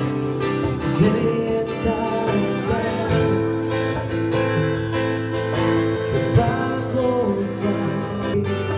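Background music: a pop song carried by guitar, playing at an even level throughout.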